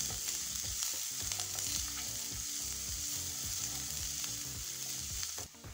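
Diced onions sizzling in hot vegetable oil in a frying pan, stirred with a wooden spoon that scrapes and taps across the pan. The sizzle drops away sharply near the end.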